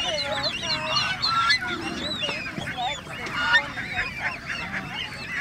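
A crowd of penned poultry calling over one another: many short, overlapping calls with no pause between them.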